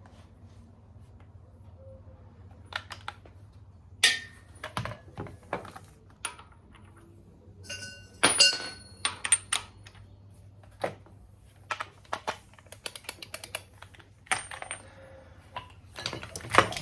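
Metal hand tools and parts being handled and set down: irregular clicks and knocks, some with a short metallic ring, thickest about halfway and again near the end, over a faint steady low hum.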